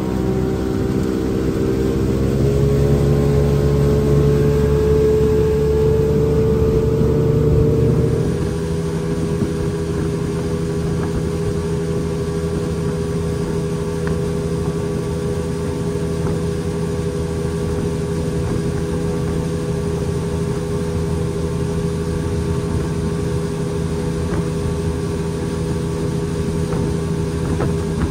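Speedboat engine running hard under way, its pitch rising slightly over the first several seconds as the boat gathers speed. About eight seconds in the sound changes abruptly and the engine settles into a steady run at cruising speed, with a rushing hiss of wind and water beneath it.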